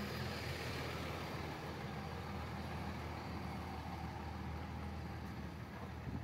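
Large bus engine idling steadily, a constant low running hum with no change in speed.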